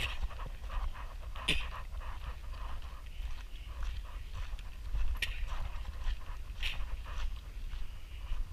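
Close breathing and scuffing movement noises, with sharp clicks about a second and a half in, at five seconds and near seven seconds, over a low rumble of wind on the microphone.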